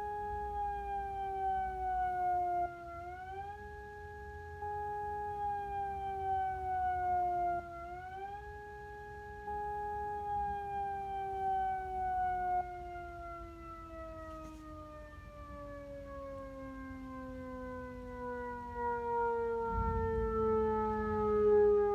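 Outdoor warning siren sounding the 'Attack' tone, a public alert to take shelter. The pitch swoops up and falls slowly twice, then sinks in one long, slow fall, and the loudness rises and falls every few seconds.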